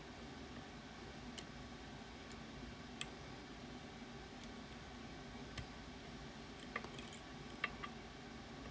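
Faint, irregular metallic clicks and ticks of lock picks working inside a Ruko Garant 10 sidebar lock, about ten in all with one louder click a few seconds in and a quick cluster near the end, over a steady low hum.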